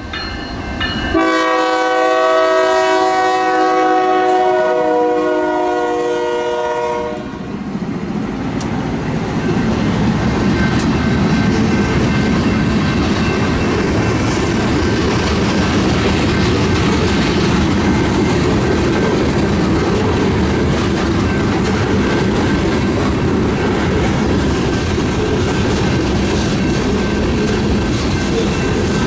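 Freight locomotive's Nathan K5HL five-chime air horn sounding a chord: it breaks off briefly about a second in, then one long blast drops slightly in pitch as the locomotive passes and ends about seven seconds in. After that the freight cars roll by in a steady rumble with wheel clatter.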